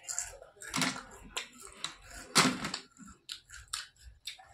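Crisp fried papad being bitten and chewed: a series of dry crunches, the loudest about two and a half seconds in, followed by quicker small crackles near the end.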